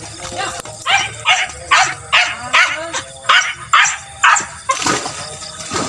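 Beagles baying in chase: a rapid run of short, loud yelping barks, about two to three a second, each dropping in pitch, as the hounds pursue game.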